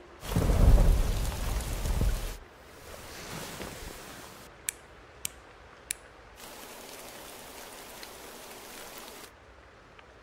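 Rain falling, opened by a loud low rumble lasting about two seconds. Midway there are three sharp clicks about half a second apart, then the rain hiss goes on evenly until it drops away near the end.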